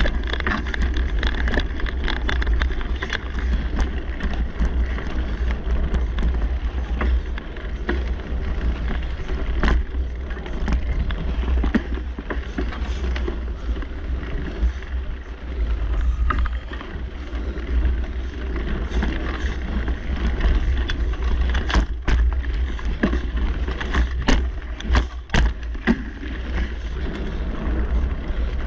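Mountain bike ridden over a dirt singletrack: steady wind rumble on the microphone and tyre noise on the dirt, with sharp knocks and rattles of the bike over bumps, coming thickest about three-quarters of the way through.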